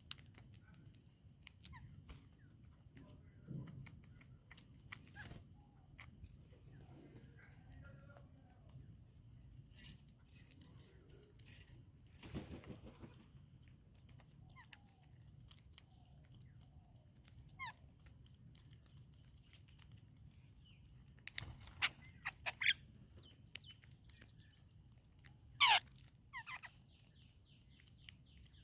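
Wild birds calling now and then with short chirps. Several come together a little after the middle, and the loudest is a sharp call that falls in pitch near the end. Under them runs a steady high-pitched drone of insects.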